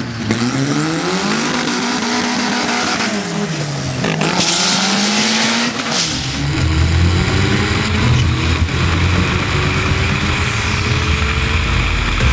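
Drag car engine revving hard, its pitch rising and falling, then a loud hissing rush about four seconds in as the car launches. After that, an engine pulls steadily up through the revs over a heavy low rumble.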